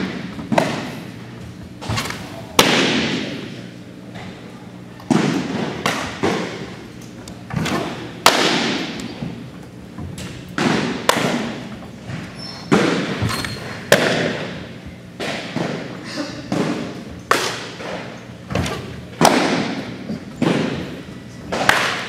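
Baseballs smacking into catchers' mitts again and again, a sharp pop roughly every second at an uneven pace, each one echoing around a large gymnasium.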